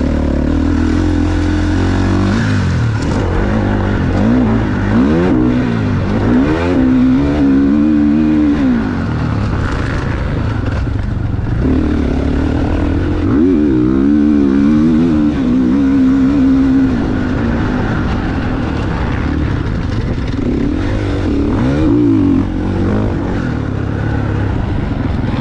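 GasGas MC450F motocross bike's four-stroke single-cylinder engine under riding load, revving up and down repeatedly as the bike is ridden around the track.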